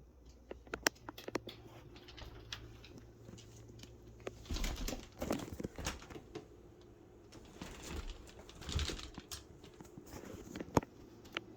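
Scattered light taps and clicks, with two short stretches of rustling and clattering in between.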